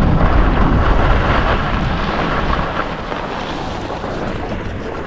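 Wind rushing over a ski camera's microphone, with skis sliding on groomed snow. The noise is loud and steady at first and gradually dies down as the skier slows toward the lift line.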